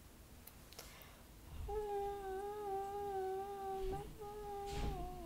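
A girl humming two long, steady notes, the second dipping slightly in pitch as it ends, after a couple of faint clicks.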